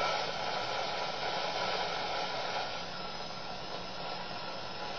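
Steady hiss of shortwave static from a small Coby shortwave radio's speaker, turned up while it is tuned across the 9.40–9.75 MHz range with no station coming in. It drops a little in level about halfway through.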